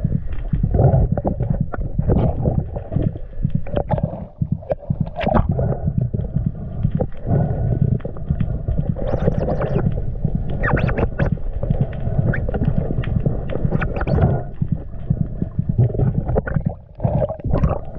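Muffled underwater rumble and gurgling of water rushing past a camera in a waterproof housing, broken by irregular clicks and knocks as a diver is towed down by a speared fish.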